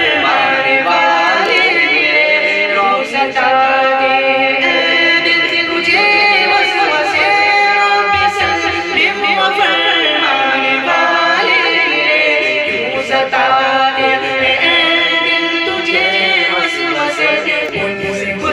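A man singing an Urdu naat unaccompanied into a microphone, drawing out long held notes that bend and waver.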